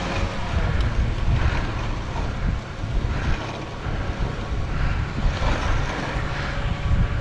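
Dog sled running over snow: a steady rumble of runners on snow with wind buffeting the microphone, and a hiss that recurs about once a second.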